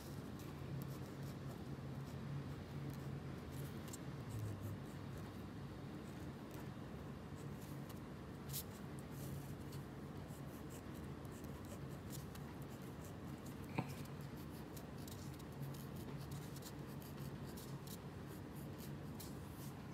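BIC Round Stic medium ballpoint pen scratching on paper in many short strokes, drawing small squares. A faint steady low hum runs underneath.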